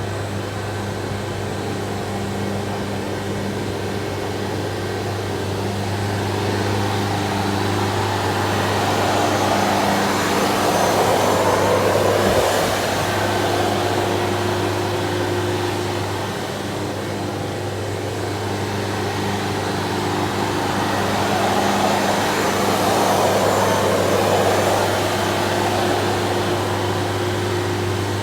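Concrete floor grinding machine running: a steady motor hum under a rushing grinding noise that swells louder twice.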